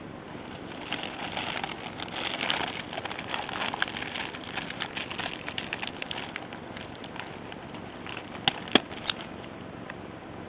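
Paper fruit bag crinkling and rustling as it is fitted and folded around a young peach on the tree, with three sharp clicks in quick succession near the end.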